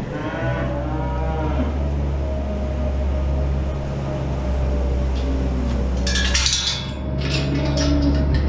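Holstein cows mooing, with one call at the start and another near the end, over a steady low hum. From about six seconds in, a steel barn gate's chain and latch clank and rattle as the gate is unhooked.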